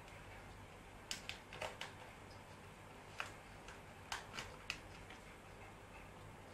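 Fish snatching food at the aquarium water surface: a scatter of sharp little clicks, clustered about a second in and again around three to five seconds in, over a faint low hum.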